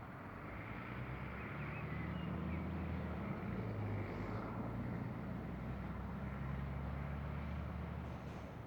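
Commuter train running past the platform: a low rumble with a steady low hum that swells over the first two seconds, holds, and slowly fades toward the end.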